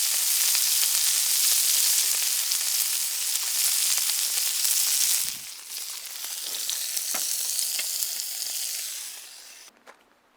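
Pork belly sizzling on a griddle over a wood fire. A loud, steady sizzle drops to a quieter sizzle with scattered pops about five seconds in, then fades out near the end.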